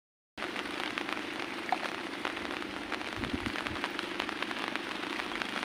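Heavy rain falling steadily, a dense hiss with many small raindrop taps close by. It comes in after a split second of silence at the start.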